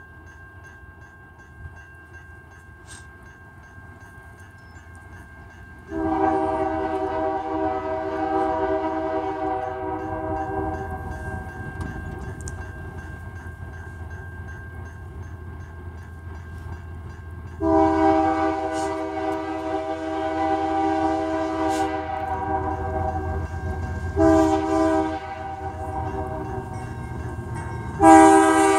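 Canadian National freight locomotive's air horn sounding the grade-crossing signal: a long blast about six seconds in, a second long blast, a short one, and a final long blast starting near the end. Underneath, the low rumble of the approaching train grows, and the level-crossing bell rings steadily.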